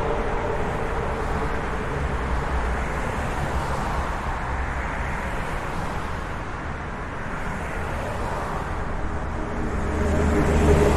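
Road traffic noise: a continuous rush of passing vehicles with a steady whine, easing a little midway and swelling again near the end as another vehicle comes close.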